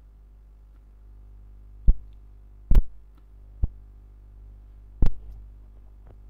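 Computer mouse clicking: five sharp, irregularly spaced clicks, one of them a quick double click, over a steady low electrical hum.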